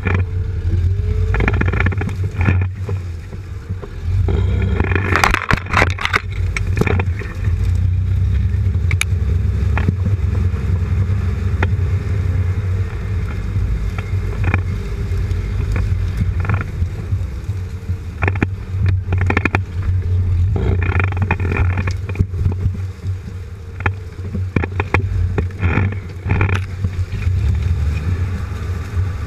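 Jeep Cherokee XJ crawling off-road at low speed, heard from beneath the vehicle: a steady low engine and drivetrain drone, with clusters of knocks and rattles from the suspension and underbody a few times as it goes over logs and rough ground.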